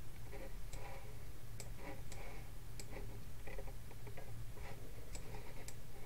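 Faint, irregular clicking of a computer mouse, heard over a low steady hum.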